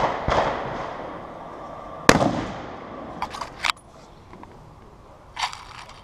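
Rifle shots on a running-boar target range: one report right at the start and another about two seconds in, each trailing off in a long echo off the range's wooden baffles. A few sharp metallic clicks follow about a second later.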